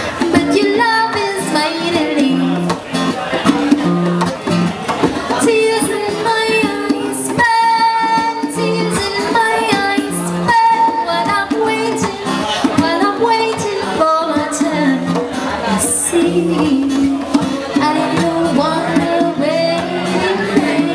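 Background music: a song with a woman singing over plucked guitar and a steady repeating accompaniment.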